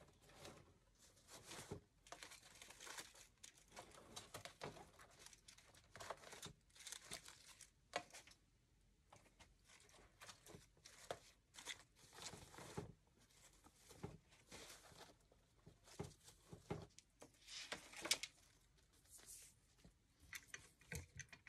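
Faint, scattered rustling and crinkling of artificial greenery stems being handled and pushed into a grapevine wreath.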